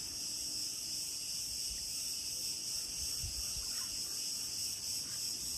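Insects buzzing steadily and high-pitched, an unbroken drone.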